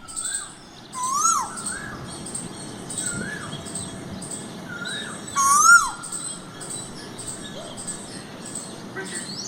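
Birds calling at a feeder: a clear whistled call that rises and then drops sharply is repeated several times, loudest twice. Thin high chirps sound in between.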